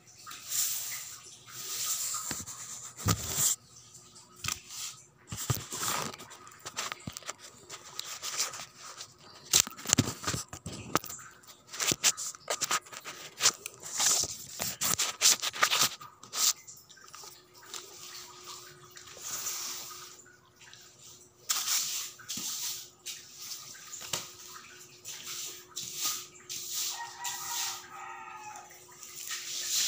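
Irregular rustling, scraping and knocking from objects being handled close to the microphone, coming in uneven clusters. A faint steady hum joins about halfway through, and there is a brief chirp-like sound near the end.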